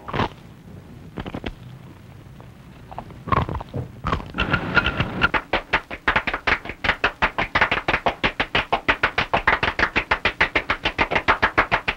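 Hands slapping: a few separate slaps, then from about four seconds in a rapid, even run of about six slaps a second.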